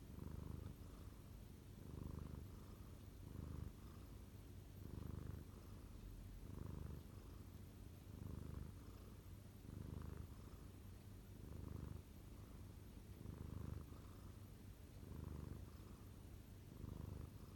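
Domestic cat purring, a low rumble that swells and fades in a slow, even rhythm about every second and a half as it breathes in and out. The purr is deep enough to be mistaken for snoring.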